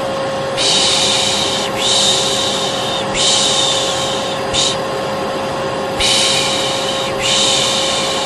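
Hair dryer running steadily with a constant hum, overlaid by a voice repeatedly shushing, about six long hisses of roughly a second each with short breaks between. Together they make the 'piş piş' white noise used to calm a colicky baby.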